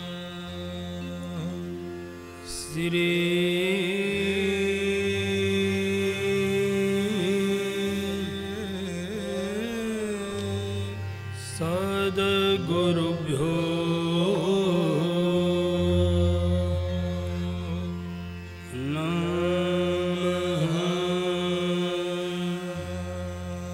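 Devotional chant sung by a solo voice in three long, gliding melodic phrases over steady held instrumental notes that shift pitch underneath.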